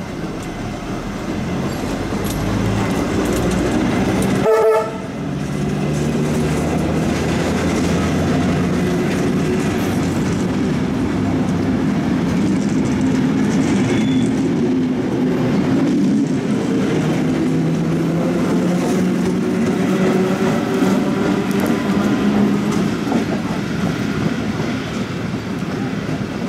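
Tait 'Red Rattler' electric suburban train running along the platform: one short blast of its horn about four and a half seconds in, then the steady hum of its motors and wheel noise on the rails.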